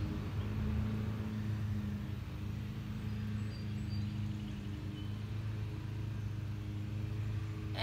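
Steady low mechanical hum from a running motor, even throughout, with faint background noise.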